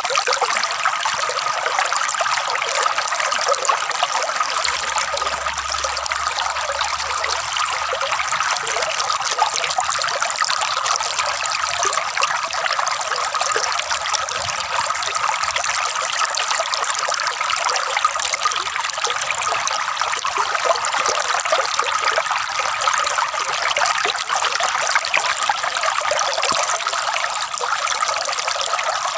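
Water trickling and gurgling in a steady, unbroken flow, light and hissy with no deep rumble.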